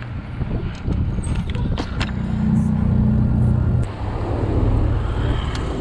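Low rumble of wind on the camera microphone and street traffic while a mountain bike rolls along a city avenue. A few light clicks and rattles come about a second in, and the rumble swells for a couple of seconds in the middle.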